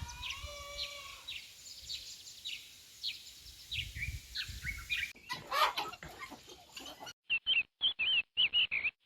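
Small birds chirping repeatedly, with a rooster's crow trailing off in the first second. In the last two seconds the chirps cut in and out abruptly.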